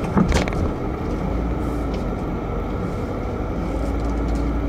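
Car cabin noise while driving slowly: a steady low engine and road rumble under a hiss. There are a couple of sharp clicks just after the start.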